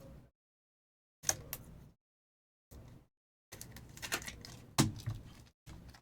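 Trading cards and plastic card holders being handled: clicks, taps and rustles in short bursts broken by silence, with a sharp snap about a second in and a louder one near the end.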